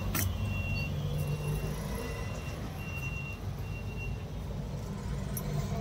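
Steady low rumble of a vehicle engine, with a high electronic beep repeating roughly once a second that stops about four seconds in.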